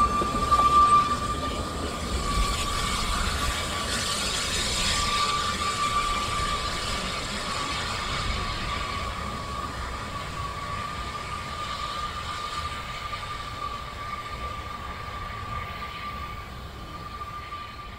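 Narrow-gauge railway coaches rolling away along the track, their wheels giving a steady high squeal on the curve over a low rumble, fading as the train draws away.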